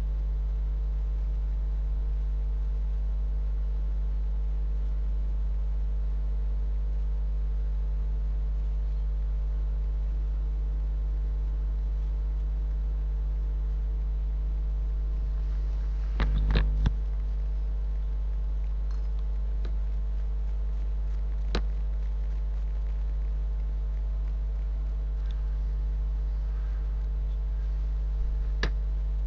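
Steady low electrical hum, like mains hum picked up by the recording microphone, with a short cluster of clicks about halfway through and two single clicks later.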